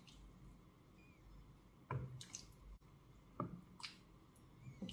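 Thick vegetable stew being stirred in a steel pan with a wooden spoon, faint: a few short wet squelches and soft knocks, about four in all, the loudest about two seconds in.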